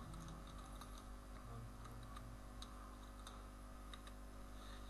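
Faint computer keyboard keystrokes, a few scattered taps a second apart or so, over a low steady hum.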